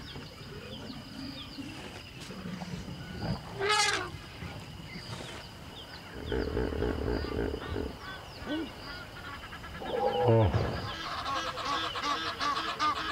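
Bird calls: a single call about four seconds in, a falling call about ten seconds in, then many calls overlapping from a flock toward the end. A faint, steady high-pitched whine runs underneath.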